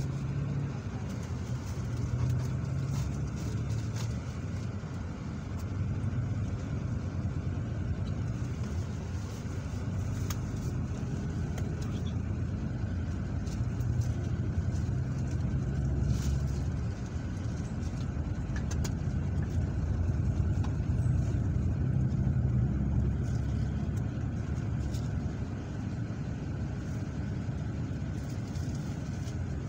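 Steady low rumble of road and engine noise heard from inside a moving vehicle's cabin, with a few faint clicks.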